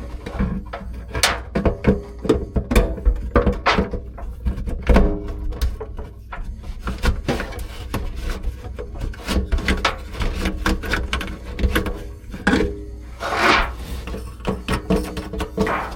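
Background music, with irregular knocks and scraping sounds throughout.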